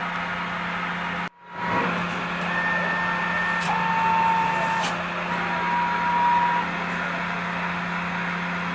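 Steady machine hum from a 2008 Mazak Variaxis 500-5X-II CNC machining center, with faint whining tones coming and going in the middle. The sound cuts out briefly about a second in.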